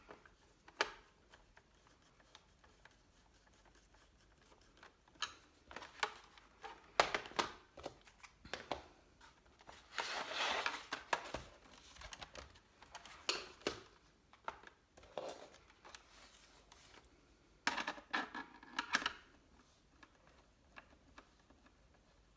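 Irregular clicks, light knocks and short scrapes on a laptop's plastic case as a Phillips screwdriver drives the two keyboard screws back into it and the laptop is handled.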